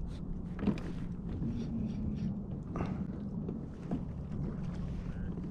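Wind on the microphone and water lapping against a sit-on-top fishing kayak's hull, with three light knocks on the kayak.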